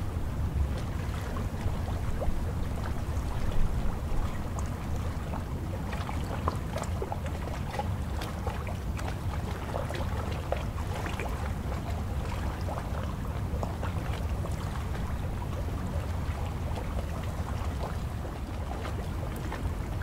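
Small wind-driven waves lapping and splashing at the water's edge, with many little splashes and a few louder ones in the first four seconds, over a steady low rumble of wind on the microphone.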